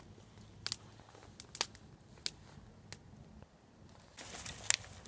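Small wood campfire crackling, with scattered sharp pops every second or so and a faint hiss late on.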